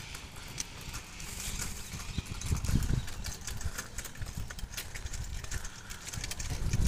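Footsteps on a paved path, recorded while walking, with wind buffeting the microphone in low rumbling gusts about two and a half seconds in and again near the end.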